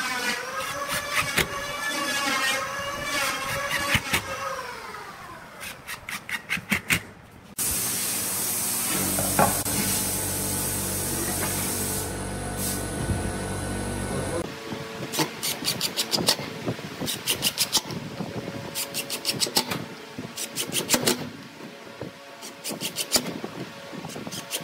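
Cordless impact driver sinking screws into pine: the motor whine wavers in pitch with the load, and clusters of rapid hammering clicks come as the screws drive and seat. For several seconds in the middle there is a steady loud hiss and hum that starts and stops abruptly.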